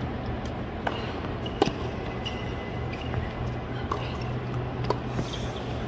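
Tennis rally heard from high in a stadium's stands: several sharp ball strikes and bounces on the hard court, roughly a second apart, the loudest about one and a half seconds in, over a low steady murmur of the crowd.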